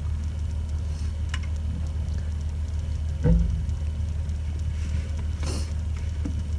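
Steady low engine rumble, with a few faint knocks and a brief low thump about three seconds in.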